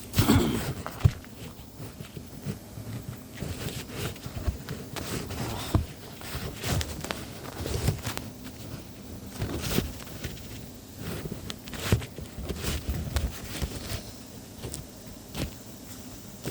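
Handling noises: irregular clicks, taps and rustles of small wiring connectors and their packaging being picked up and moved about, with a sharper knock about a second in.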